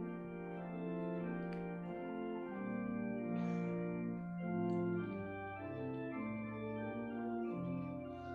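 Church organ playing the psalm tune in held chords that change every second or so.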